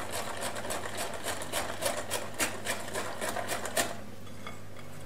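Hand whisk beating cake batter in a glass bowl: a quick run of clicks, about four to five a second, as the wires strike the glass, stopping about four seconds in. A low steady hum lies underneath.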